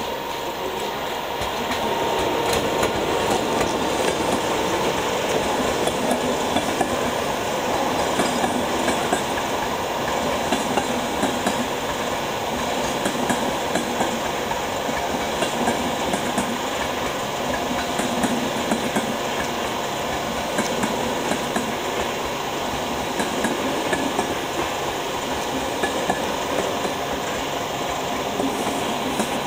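Passenger train behind a class 350 electric locomotive rolling over rail joints and points, with a steady run of wheel clicks, a clickety-clack, that grows louder about a second or two in.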